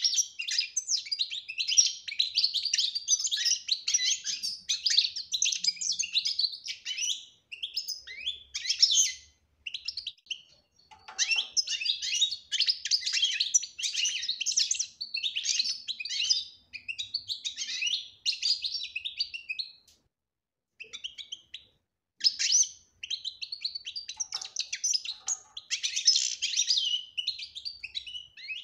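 European goldfinch singing its twittering song: long runs of rapid, high chirps and trills, broken by a few short pauses.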